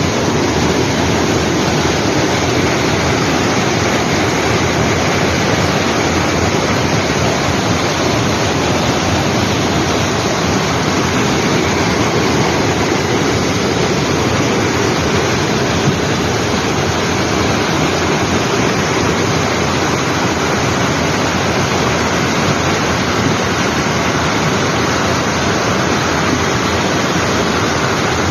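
Loud, steady rush of fast-flowing floodwater pouring over rocks, with no let-up.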